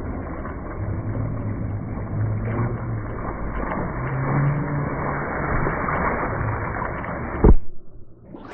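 Muffled churning and splashing water from a swimmer's butterfly strokes, heard through a phone microphone at or under the pool surface, with a low hum underneath. A sharp thump comes near the end, then the sound drops away.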